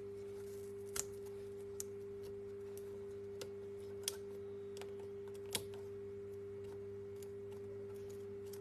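A few light clicks and taps, about five spread over several seconds, from working a glued webcam module and its ribbon cable loose from a laptop's screen lid. A steady low hum runs underneath.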